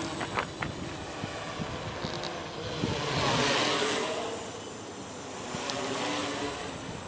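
Small Y6 hexacopter's six electric motors and propellers buzzing in flight, swelling louder about halfway through and again near the end as the multirotor moves about, with gusts of wind rumbling on the microphone.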